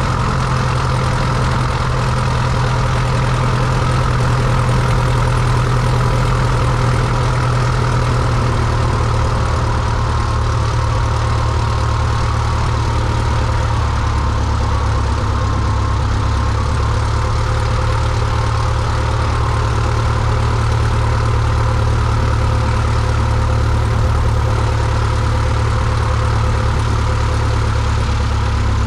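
Cessna 172's piston engine and propeller idling with a steady low hum while the plane rolls out on the runway after landing.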